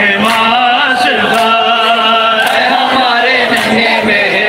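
A group of men chanting a nauha, a Shia mourning lament, in long drawn-out, wavering notes, with sharp strikes about twice a second keeping time.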